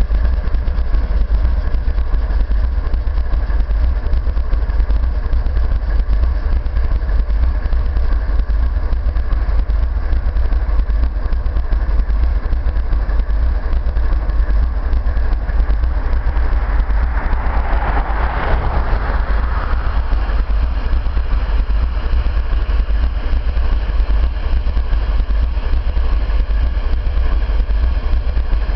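A pair of GE diesel-electric locomotives, an ES44AC and an AC4400CW, running steadily with a deep engine rumble. A little past halfway, a rush of noise rises and fades over about three seconds.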